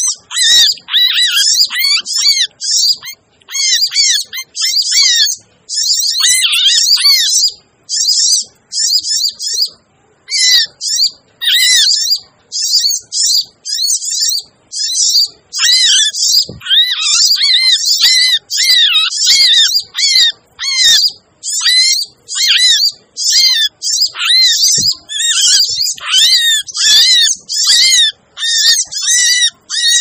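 Sogok ontong sunbird lure call: fast, busy, high-pitched chirping and twittering in rapid clusters, broken by short pauses. It is a 'ribut' (noisy) call recording played to draw the birds in for trapping.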